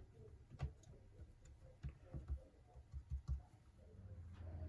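Scattered light clicks and knocks of small plastic and metal laptop parts and tools being handled. A low steady hum starts near the end.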